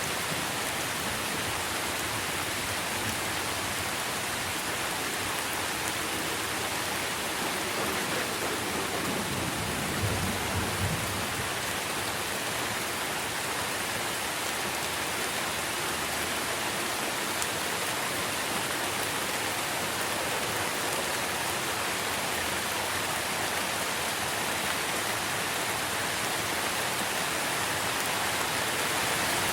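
Steady rain falling on trees and leaves, an even hiss with no let-up. About ten seconds in there is a brief low rumble.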